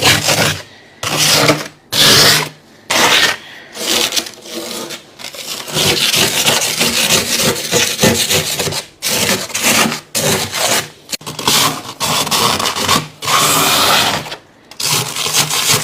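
Freezer frost ice being scraped and crunched: a run of gritty, rasping scrapes and crunches in irregular bursts, broken by short pauses.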